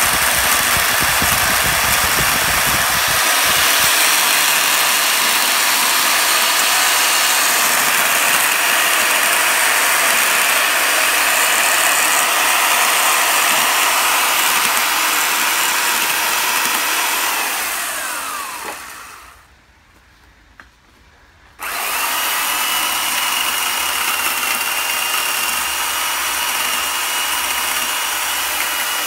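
Small chainsaw-type carving tool cutting into a bonsai trunk with a steady buzz. About eighteen seconds in it winds down and stops, and after a couple of seconds of quiet it starts again suddenly and runs steadily.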